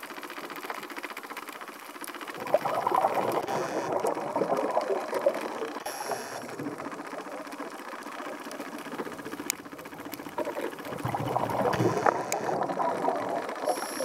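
Scuba regulator exhaust bubbles burbling underwater in two bursts of a few seconds each, about nine seconds apart, the rhythm of a diver's breathing, with a faint steady crackle between them.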